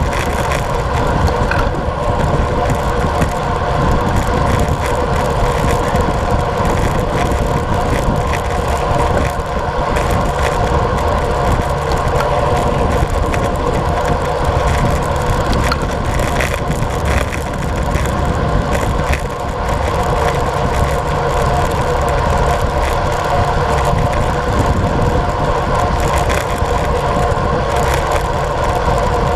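Wind rushing over a bike-mounted camera's microphone and road-bike tyres humming on asphalt at about 40 km/h, a steady unbroken noise with a low rumble under it.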